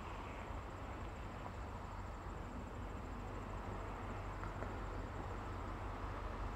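Steady wash of road traffic from cars passing on a multi-lane road, tyre noise over a low rumble, with a thin, steady high trill above it.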